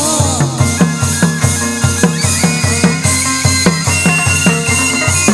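Chầu văn ritual music with a steady low drum beat, about three strokes a second, under a held high melody line, played to accompany a medium's dance.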